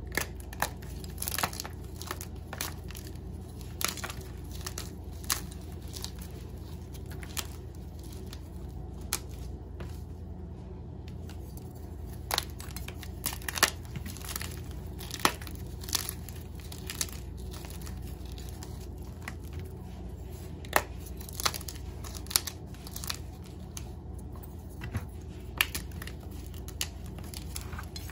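Chunks of gym chalk crushed and crumbled between bare fingers: irregular dry crunches and crackles with occasional sharp snaps, over a steady low hum.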